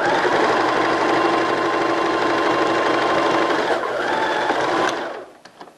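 Domestic sewing machine stitching a seam through cotton knit fabric: it starts up at once and runs steadily, eases off briefly about four seconds in, and stops a little after five seconds, followed by a few faint clicks.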